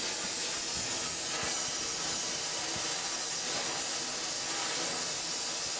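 Welding on a steel water pipe: a steady, even hiss with faint crackling underneath.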